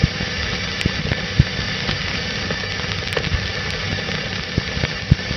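Old-film soundtrack noise: a steady hiss and rumble with irregular crackles and pops, like a worn 16mm print's optical track running through a projector.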